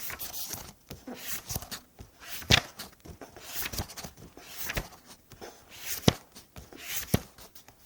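Pages of a book being turned one after another: a papery rustle as each page slides, ending in a crisp flick as it falls over, about once a second. The sound stops just after the last page turn.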